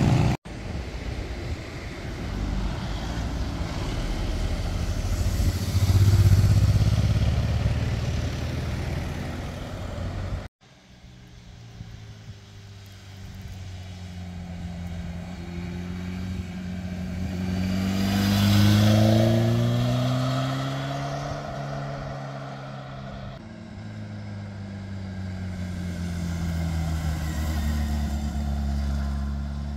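Motorcycles passing through a hairpin bend, heard from the roadside in a few separate passes. The engines run and accelerate out of the curve, their note rising in steps and dropping back as the riders shift up through the gears. The passes are split by sudden cuts.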